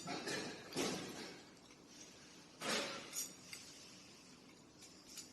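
Several separate sharp clinks and knocks, irregularly spaced about a second apart, with no steady machine running.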